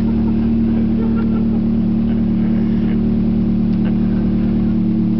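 Toyota 4A-GE 20-valve blacktop four-cylinder engine running at a steady, held engine speed, with no rise or fall in revs.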